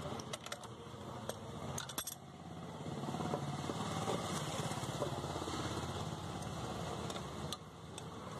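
Metal clicks and clinks of a socket wrench on the clutch drum nut of a Suzuki Access 125 scooter, with the steel clutch drum being handled, then a steady fast rasping noise lasting several seconds as the nut is run down.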